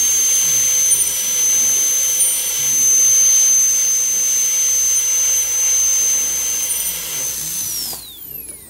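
High-speed dental handpiece running with a steady high-pitched whine and airy hiss, used to finish and polish a class IV front-tooth restoration. It dips slightly in pitch a few times and winds down about eight seconds in.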